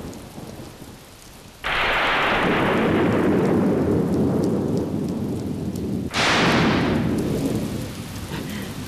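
Heavy rain falling steadily, with a sudden thunderclap about one and a half seconds in that rolls on as a long low rumble, and a second, sharper crack of thunder about six seconds in.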